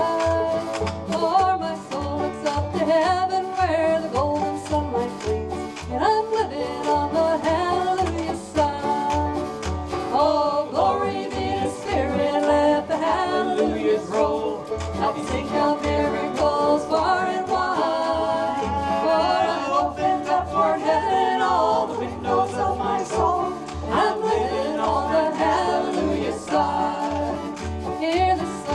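Acoustic country-gospel band music: strummed string instruments over a steady bass beat, with a bending melody line carried on top.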